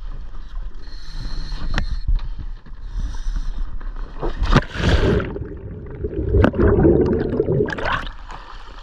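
Water splashing and gurgling as a scuba diver enters the sea, with a few sharp knocks and two louder rushes of water, about halfway through and again a couple of seconds later.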